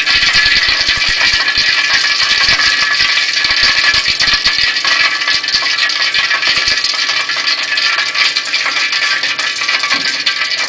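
Hot cooking oil sizzling in a wok, with dense crackling for the first several seconds before it settles to a steadier hiss.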